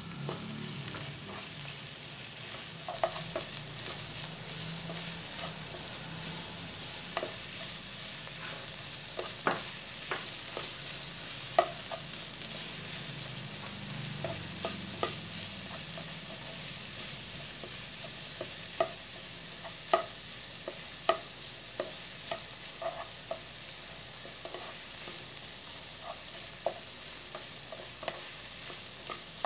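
Diced Spam, carrots and spring onions sizzling steadily in a nonstick wok while a plastic slotted spatula stirs and scrapes them, with frequent sharp clicks of the spatula against the pan.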